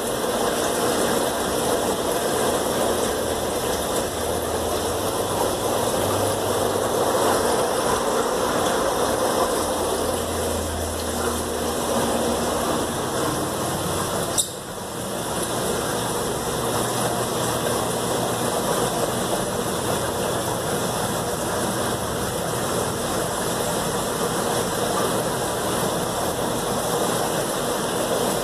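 Aquarium equipment running: a steady mechanical hum with an even rushing hiss, as from air pumps and filters. A single sharp click about halfway through.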